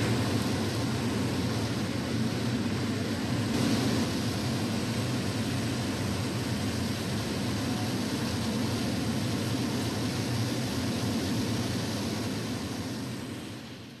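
Horseshoe Falls at Niagara: the steady roar of a huge volume of water pouring over the falls, fading out near the end.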